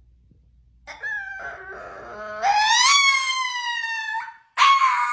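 A small dog howling. After a wavering start the howl rises and holds on a long, slowly falling note, and a short final howl near the end cuts off suddenly.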